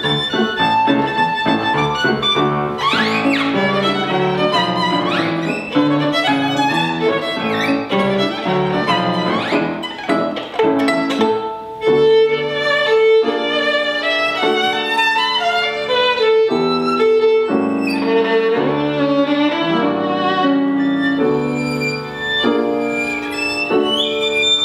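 Solo violin playing a fast, lively showpiece with piano accompaniment, with quick upward slides in pitch that imitate a canary's call.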